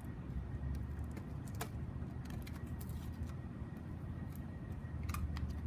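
A few faint, scattered clicks and scrapes as the end of a cardboard mailing tube is cut and pried open, over a steady low rumble.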